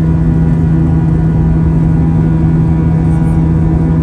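Airbus A320 jet engines and airflow heard inside the cabin at a window seat by the wing, as a steady drone with a constant low hum, while the plane climbs after takeoff.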